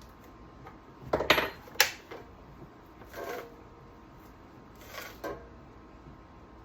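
Saw chain being pulled out from the guide bar and snapped back against it to check the chain tension: a cluster of sharp metallic clacks about a second in, then a few softer clinks.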